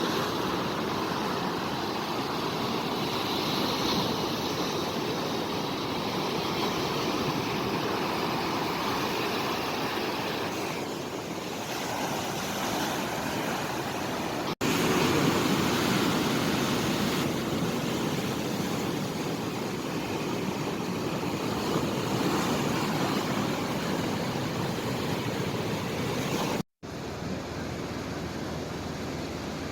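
Steady rushing water. The sound cuts abruptly about halfway through and drops out for an instant near the end, then carries on as a flatter, more even rush.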